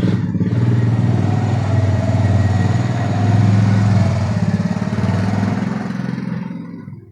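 Honda Recon 250 ATV's single-cylinder four-stroke engine revved up from idle and held at a steady higher speed, then easing back down near the end.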